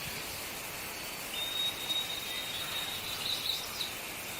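Birds chirping over a steady insect hiss, with a thin high tone held for a couple of seconds and a quick run of chirps about three seconds in.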